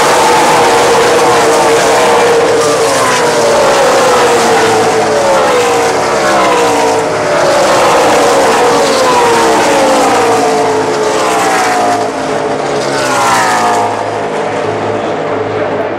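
NASCAR race trucks' V8 engines at full throttle as the pack streams past the grandstand, each truck's engine note dropping in pitch as it goes by, many overlapping. The engine noise eases off a little after about twelve seconds.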